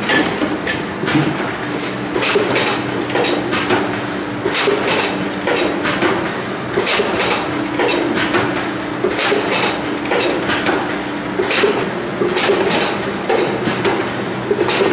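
Bucket denester running: plastic pails pulled one by one off a stack and dropped onto a belt conveyor, with irregular knocks and plastic clatter several times a second over a motor hum that comes and goes.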